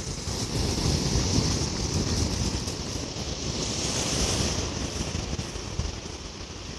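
Ocean surf washing steadily, with wind buffeting the microphone; the surf hiss swells a little past the middle.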